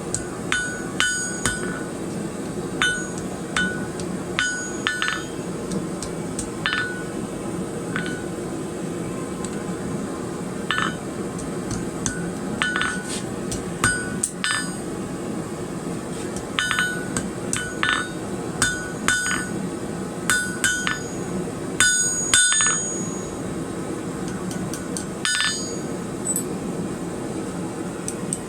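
Hammer tapping on a blacksmith's anvil to clean up and straighten a small forged piece: irregular light strikes, often in quick pairs, each with a short metallic ring, over a steady low hum.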